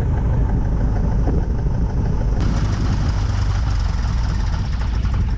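Aviat Husky's four-cylinder aircraft engine and propeller idling steadily on one of its first runs after a full rebuild and overhaul following submersion. About two and a half seconds in, the sound turns brighter and harsher as it is heard from outside, in front of the propeller, rather than from the cockpit.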